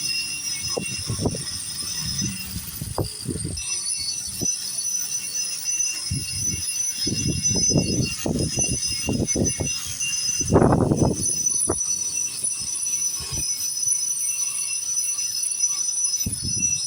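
Angle grinder running with a steady high whine as its disc grinds paint off a concrete foundation, with irregular louder bursts as it bears on the surface.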